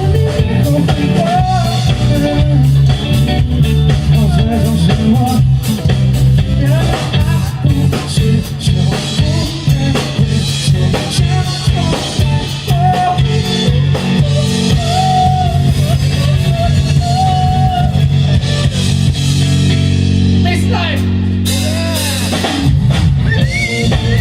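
Rock band playing live through a PA: drum kit, bass and electric guitar in an instrumental passage, with a lead line that bends in pitch over the band.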